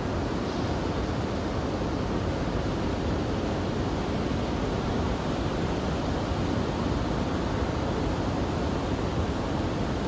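Ocean surf breaking on a beach: a steady, even rush of waves with no single crash standing out.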